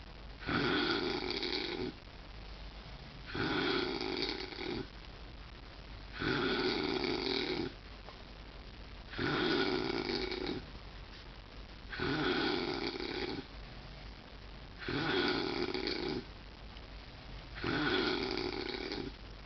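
Loud snoring: seven snores in a slow, even rhythm, one about every three seconds and each lasting well over a second, with quieter breathing between.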